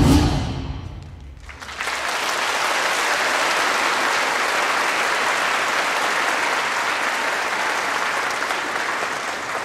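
The last hit of the dance music rings out and dies away, then a theatre audience breaks into steady applause about two seconds in, easing slightly near the end.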